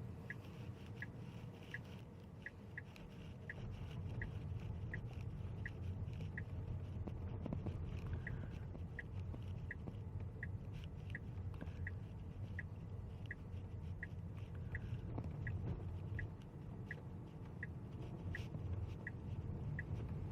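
Turn-signal indicator ticking inside a Tesla's cabin, about one tick every 0.7 s, over the low rumble of tyres and road. The ticking stops about 6 s in, then starts again about 8 s in as the car signals once more.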